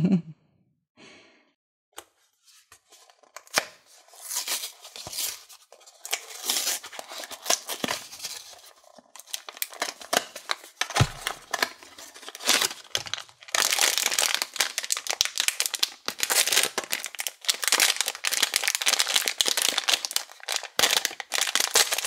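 Cardboard blind box being pulled open, with scattered tearing and crackling after a near-quiet start, then a foil wrapper bag crinkling and tearing open, the crinkling dense and continuous over the last third.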